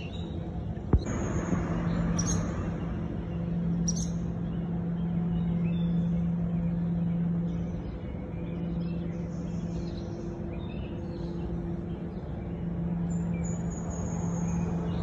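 Birds calling with short high chirps and whistles over a steady low hum, with one sharp click about a second in.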